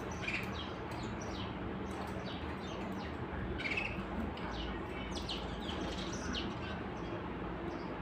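Caged canaries chirping: short, high notes, mostly falling in pitch, a few each second, over a steady low background noise.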